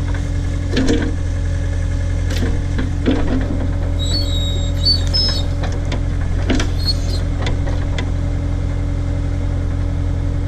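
Case/Davis D100 backhoe's engine running steadily under load as it digs, with several clanks and knocks from the bucket and boom and a few brief high squeals about four to five seconds in.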